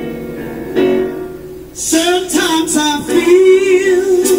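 Live soul ballad: a woman's voice comes in about two seconds in over sustained acoustic guitar chords, then holds a long note with a wavering vibrato near the end.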